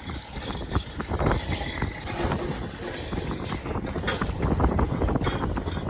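Wind buffeting the microphone with a steady low rumble, over many irregular short knocks and rattles.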